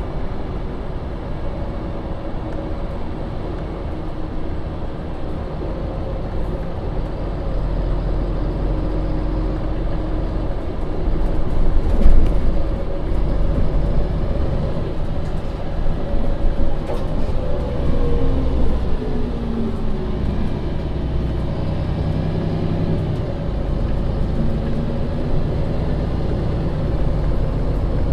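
MAN Lion's City city bus (2015, Euro 6) heard from inside while driving: steady engine and running noise with a whine that holds, then drops in pitch a little past the middle. A brief knock about twelve seconds in is the loudest moment.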